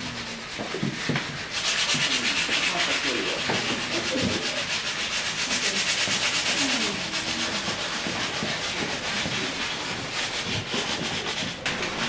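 Rapid, scratchy rubbing against a surface, like sanding or scrubbing. It is loudest from about a second and a half in until about seven seconds, then carries on more faintly, with murmured voices underneath.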